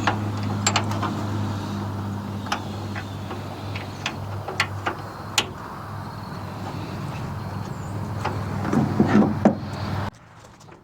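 Scattered sharp metal clicks and clinks of a wrench and bolt as a small bracket is fastened at a truck's tailgate pivot, over a steady low hum. The clicks come thicker near the end, then everything cuts off suddenly.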